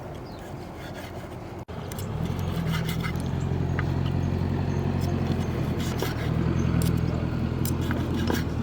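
An engine idling steadily, starting after a brief cut about two seconds in, with scattered light clicks and scrapes over it.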